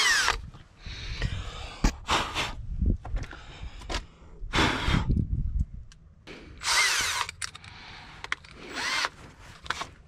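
Milwaukee 18V cordless drill run in several short bursts, starting a hole in the excavator's body panel. The motor's whine rises and falls with each squeeze and release of the trigger.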